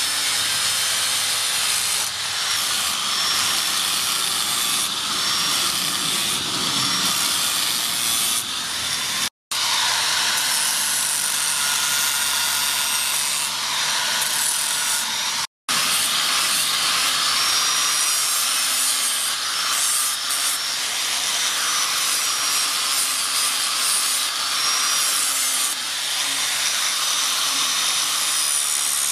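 Handheld angle grinder with an abrasive disc grinding a steel blade cut from a chainsaw bar: a steady, high grinding hiss, cut off for an instant twice.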